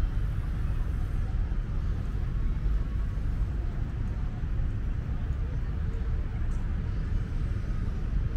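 Steady low rumble of outdoor city ambience, chiefly distant road traffic.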